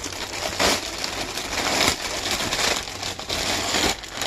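Packaging crinkling and rustling as a parcel is handled and opened, in irregular surges.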